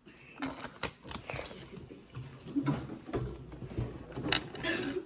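Small plastic toy packaging being handled, with scattered sharp clicks and short rustling crinkles.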